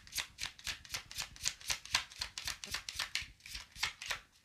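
A deck of tarot cards being shuffled by hand, cards stroking against each other in a quick, even rhythm of about five strokes a second.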